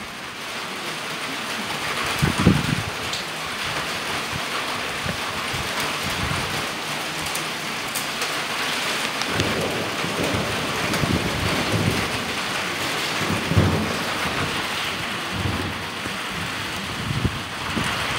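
Thunderstorm: steady rain hiss, with low rolls of thunder rumbling several times, mostly in the second half.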